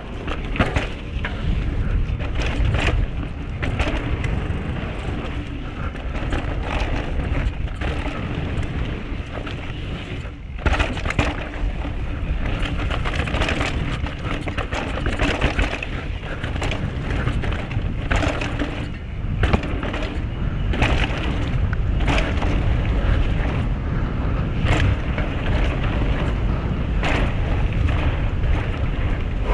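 2021 Canyon Sender CFR downhill mountain bike descending a dirt trail: steady wind rumble on the microphone and tyre noise over dirt and rocks, with frequent sharp knocks and rattles from the bike hitting bumps.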